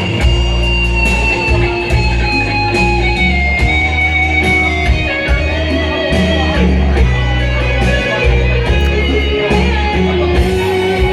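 Band music in an instrumental break between sung verses: an electric guitar plays a lead line with sliding notes over bass and drums.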